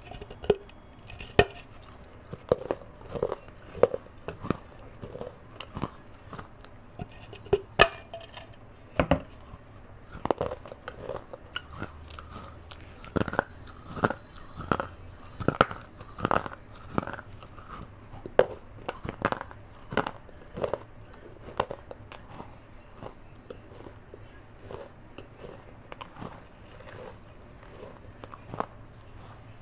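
A person biting off and chewing pieces of the rim of an earthenware matka (clay pot): dry crunches and cracks at an uneven pace, close to the microphone, thickest through the middle stretch.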